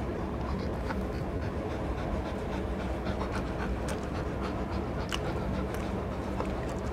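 Rottweilers panting steadily, with scattered small clicks.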